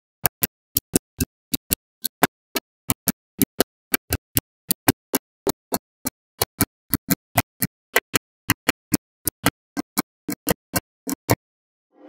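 Small magnetic balls clicking as strips of them are snapped onto a wall built of the same balls: a steady run of sharp clicks, about four a second, that stops shortly before the end.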